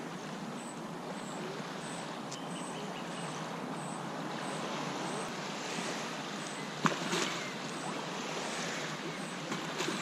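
Small waves lapping on a sandy lake shore, a steady wash of water, with a sharp knock about seven seconds in and a fainter one near the end.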